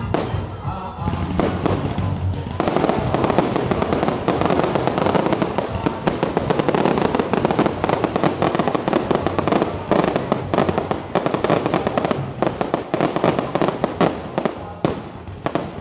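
Fireworks exploding in a rapid barrage of bangs and crackles, turning into a dense, almost continuous crackle about two and a half seconds in. Music plays underneath.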